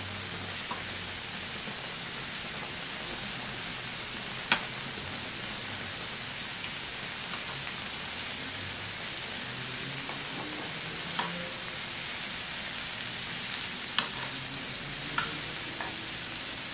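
Lobster meat, shrimp and scallops sizzling on the hot griddle ring of an electric hotpot grill, a steady hiss, with a few sharp clicks of metal tongs against the pan.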